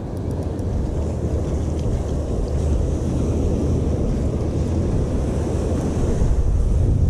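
Wind buffeting the microphone over the steady wash of breaking surf, a dense low rumble that grows slightly louder.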